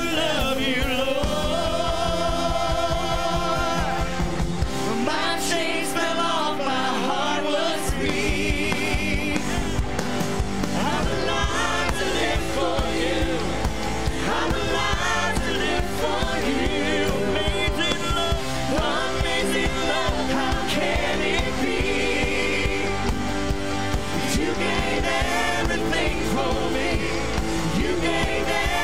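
Live worship band playing a contemporary Christian worship song: several voices singing together over electric bass guitar and keyboard.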